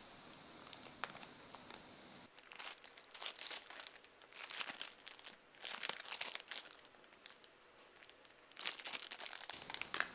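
Crinkly plastic packaging being handled, crackling in five separate bursts after a quiet start.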